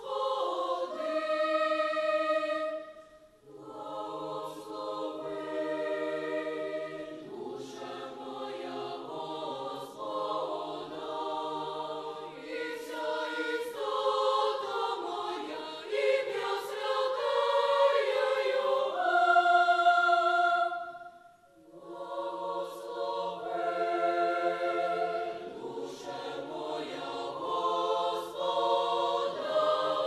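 Mixed children's choir of girls and boys singing together in several voices. The singing breaks off briefly about three seconds in and again about two-thirds of the way through, then swells louder near the end.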